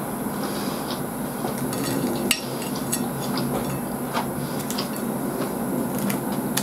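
Chopsticks clicking against a dinner plate while food is picked up: scattered light clicks, with one sharp click a little over two seconds in, over a steady low hum.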